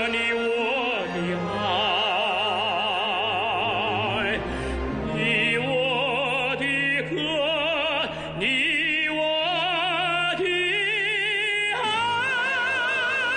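Music: a song sung with heavy vibrato over instrumental accompaniment, with a steady low held note under it from about five seconds in.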